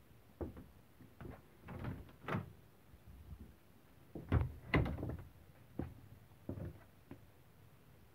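Wooden interior doors of a motorhome being handled: a string of knocks, latch clicks and short scraping slides, loudest about halfway through.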